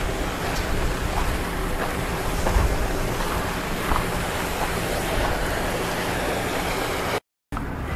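Wind buffeting the microphone: a steady rushing noise with a heavy low rumble. The sound cuts out for a moment about seven seconds in.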